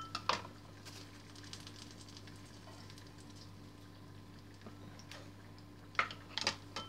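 A few light knocks and clatters of a kitchen knife and plastic measuring cups on a wooden cutting board, in the first half-second and again about six seconds in, over a faint steady low hum.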